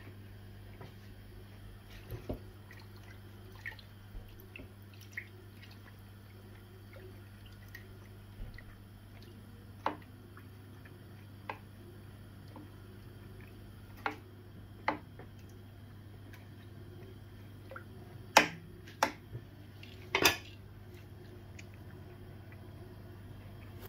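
Metal cooking pot being handled: scattered light taps and clinks at irregular intervals, with a few louder clinks close together about 18 to 20 seconds in, over a steady low hum.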